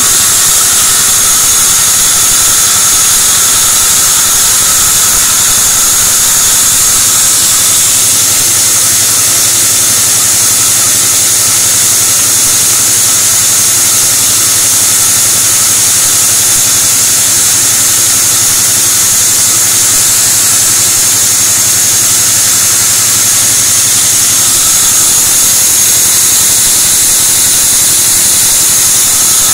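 Band sawmill running steadily, a loud, unbroken machine drone with a constant high whine.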